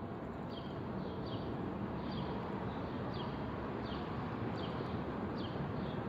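Short high chirps, each falling in pitch, repeating about one to two times a second over a steady background noise.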